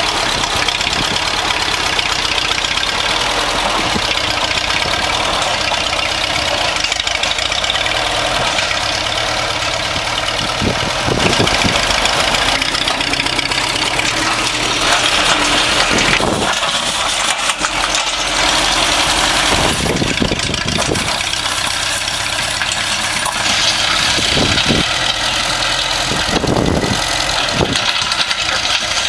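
Massey Ferguson 35 tractor engine running steadily while the tractor drags a dozer blade through gravel to level it, with occasional knocks.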